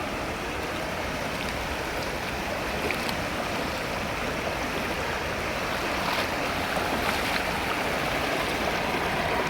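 Steady rush of a flowing stream, growing slightly louder, with a few faint ticks over it.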